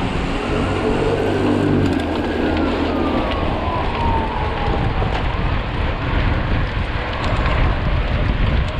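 Mountain bike ridden at speed: wind rushing over the microphone and tyres rolling over the trail, with scattered clicks and rattles. A faint whine falls in pitch twice.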